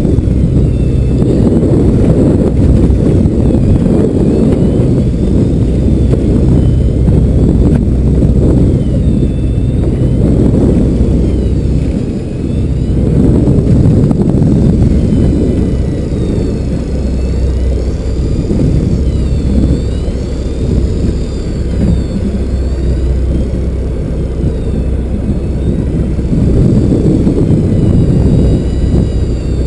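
Loud, gusting rumble of wind on the microphone aboard a fishing boat at sea, with the boat's engine running low underneath. A faint high whine wavers up and down through it.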